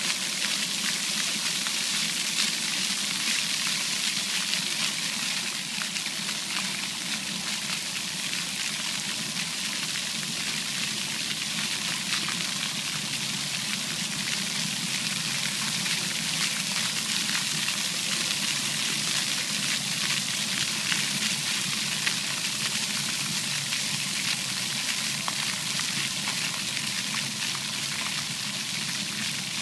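Splash-pad fountain jets spraying up and falling back onto wet pavement: a steady hiss of water.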